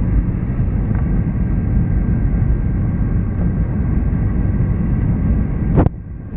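Steady low cabin noise of an Airbus A320 descending on approach: engine and airflow rumble. Near the end there is one sharp click, after which the noise is suddenly quieter.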